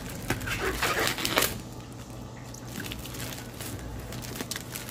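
Plastic courier pouch and clear plastic wrapping crinkling and tearing as hands pull them off a hard case. The crackling is loudest in the first second and a half, then turns to quieter, scattered rustling.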